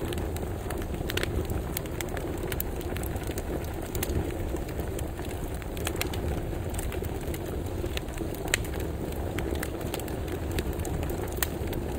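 Fireplace ambience from iOS 15's Background Sounds: a steady low rumble of burning with scattered sharp crackles and pops.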